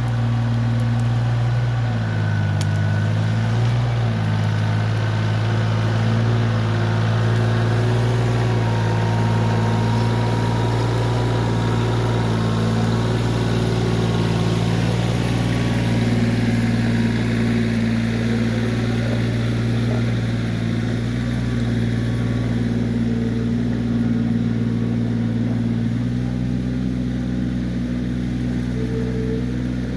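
Kioti CK20S compact tractor's diesel engine running steadily while working the backhoe, its note shifting briefly about two to four seconds in and again near the end as the load changes.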